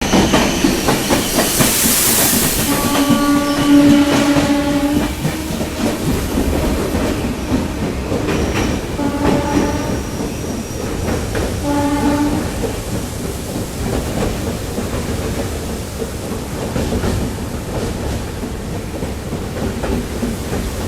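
Train running along the track with a steady rumble and wheel clatter, sounding its horn: a long blast about three seconds in, a weaker one around nine seconds and a short one around twelve seconds.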